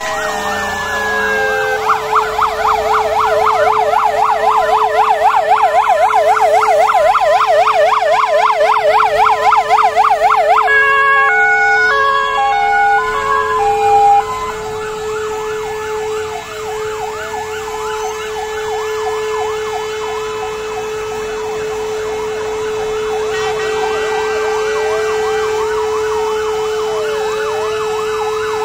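Several fire engine sirens sounding together. A fast yelping warble runs for about the first ten seconds, then a short run of stepped tones, then slower overlapping wails, over a steady held tone throughout.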